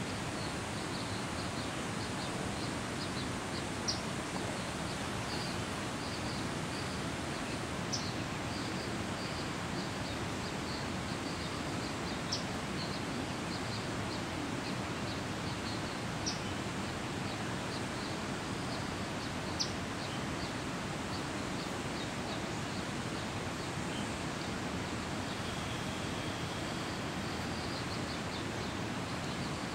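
Outdoor ambience: a steady rushing hiss, with quick faint high chirps throughout and a sharper high chirp about every four seconds.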